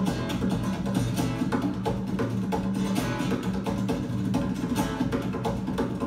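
Fast acoustic guitar duet with busy picking and percussive strumming over a steady bass line, played back through Bowers & Wilkins floor-standing loudspeakers from a FLAC file.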